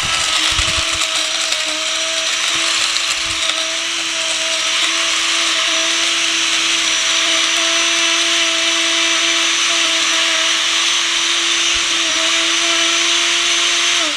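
Silver Crest stainless-steel dry masala grinder running at full speed with a steady high whine, grinding a glass bottle to powder. It is switched off right at the end and winds down.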